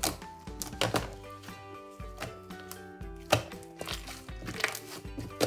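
Blue slime squished and pressed by hand, giving sharp wet clicks and pops, the loudest about three seconds in and near the end, over background music with held notes.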